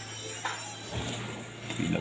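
Faint background music over a steady low hum, with a couple of soft knocks.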